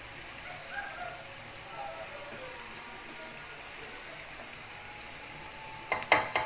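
Chopped onions frying in hot oil in a pan, a steady sizzle. About six seconds in, a few sharp knocks of the slotted spoon against the pan.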